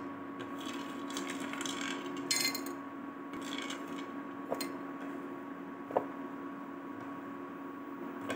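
Dry roasted chana and peanuts dropping and rattling into a steel mixer-grinder jar in a few short pours, then two light taps on the jar, over a steady hum.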